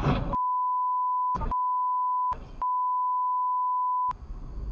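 Censor bleep: one steady, single-pitch electronic beep that cuts in just after the start and lasts about four seconds, broken twice by split-second gaps where road noise shows through. Road noise returns near the end.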